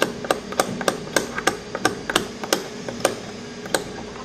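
Regular sharp tapping clicks, about three a second, over a faint steady low hum.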